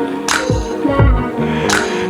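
Background music with a steady beat: deep kick-drum thumps and sharp snare-like hits over sustained synth notes.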